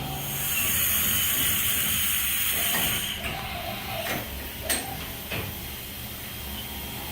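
Haas VF-9/40 CNC vertical mill running with a steady low hum: a loud hiss of air for about three seconds, then a run of five or so sharp mechanical clunks and knocks over the next few seconds.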